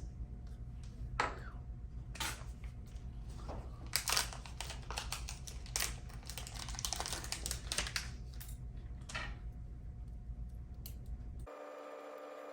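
Scattered small clicks and taps of hand tools on a microsoldering bench over a steady low electrical hum. Near the end the hum cuts off and a different steady, multi-tone sound takes over.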